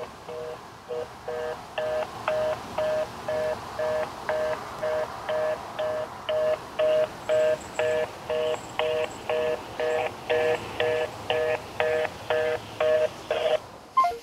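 Telephone fast-busy (reorder) tone heard through a smartphone on speakerphone: a steady two-tone beep repeating about twice a second, the signal that the call cannot be completed. It ends with a sharp click.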